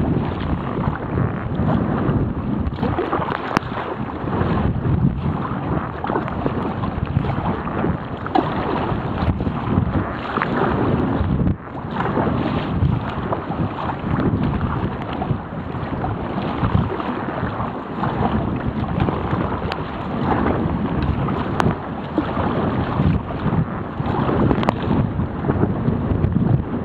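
Strong wind buffeting the microphone over rough sea water splashing around a sea kayak, the noise rising and falling in gusts.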